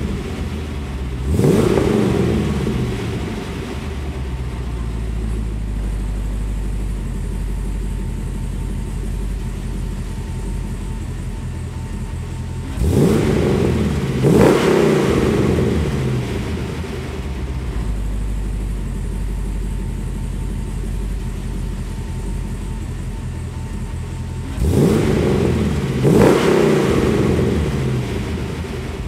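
LS3 V8 of a 1962 Corvette restomod idling, with quick throttle blips in which the engine revs up sharply and falls back: once near the start, twice around the middle and twice near the end.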